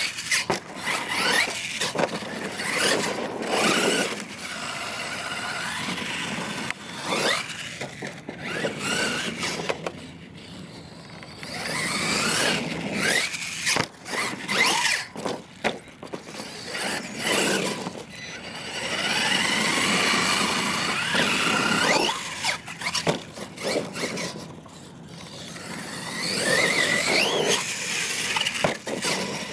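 Losi LMT radio-controlled monster truck's electric motor, on a 3S battery, whining in repeated surges that rise and fall in pitch as the throttle is worked, with its tyres scrabbling on dirt.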